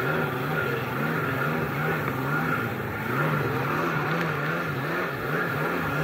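1998 Kawasaki SXi Pro stand-up jet ski's two-stroke engine running at speed while chasing through another ski's wake, its pitch rising and falling over and over as the hull bounces, with water rushing and splashing.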